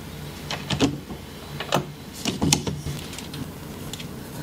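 Scattered clicks and knocks of a 3D-printed plastic exhaust port being handled and fitted onto a laser engraver's housing, over a steady low hum.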